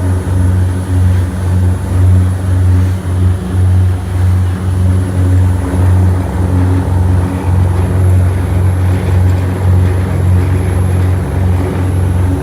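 A motor engine running steadily, a loud low drone that pulses gently throughout.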